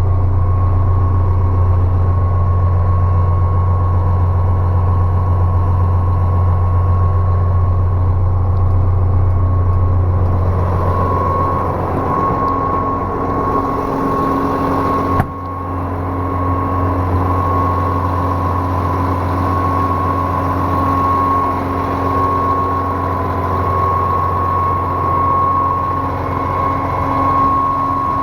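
Engine of a 2006 Putzmeister 32Z concrete pump truck running steadily, with a steady high whine over the engine's low note. A single sharp click comes about halfway through, with a brief dip in level.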